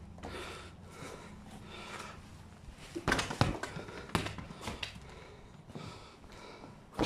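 A small football being kicked and bouncing on gritty concrete: a few sharp knocks about three seconds in, a couple more around four to five seconds, and another near the end, after a soft scuffing start.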